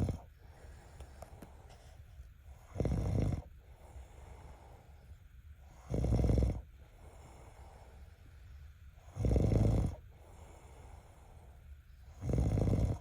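A person snoring: four deep snores, each under a second long, coming regularly about every three seconds.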